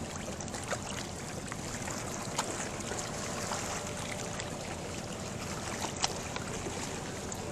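Steady wash of wind and moving water, with a few sharp clicks.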